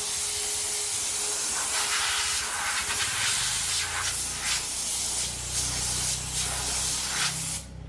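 Loud, steady spraying hiss that starts abruptly and stops just before the end, with a low hum joining about halfway through.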